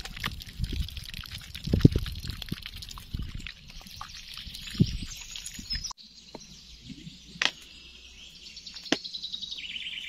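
Small birds chirping and singing in the background. Knocking and rumbling handling noise over them in the first half; after an abrupt cut about six seconds in, the birdsong goes on more quietly with a couple of sharp clicks.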